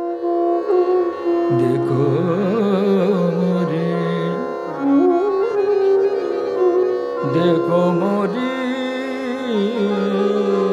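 Indian classical music: a steady drone under a melodic line that slides and ornaments between notes, coming in about a second and a half in and again around seven seconds.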